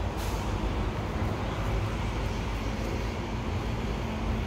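City street traffic: a steady rumble of passing vehicles, with a faint engine hum joining about three seconds in.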